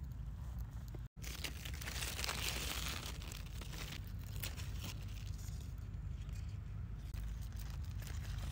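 Cucumber vine leaves rustling and crackling as hands push through them and clip pickling cucumbers off the vine, thickest about two to three seconds in, over a steady low rumble. The sound cuts out for a moment about a second in.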